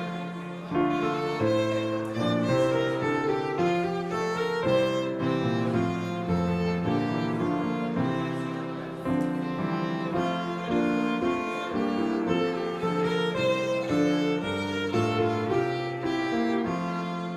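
Instrumental music: a slow melody of held notes over changing chords, with a violin-like bowed sound.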